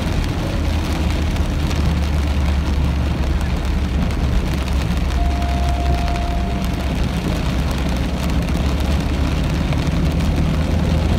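Heavy rain beating on a car's windshield and roof, heard from inside the moving car, over the steady low rumble of the car and its tyres on the wet road.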